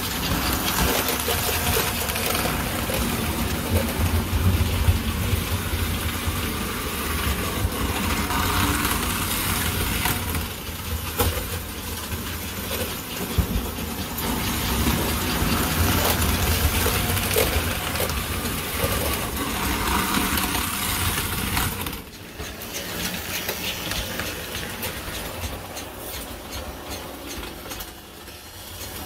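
American Flyer S gauge model trains running on the layout's track: a steady whir and rumble of the motors and wheels, with scattered clicks. The sound drops in level about three-quarters of the way through.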